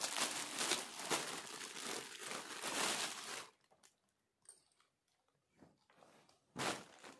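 Clear plastic packaging bag crinkling and rustling as a folded kurta is pulled out of it, for about three and a half seconds. This is followed by a few faint handling clicks and a short rustle near the end.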